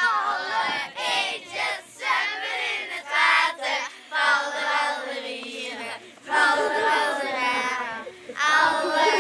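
A group of children singing together in high voices.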